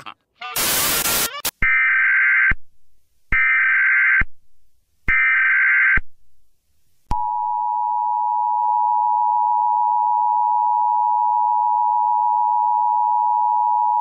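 Emergency Alert System broadcast tones. A brief burst of static comes first, then three short, screeching digital header bursts evenly spaced about a second and a half apart. From about seven seconds in comes the steady, two-note EAS attention signal, held without a break.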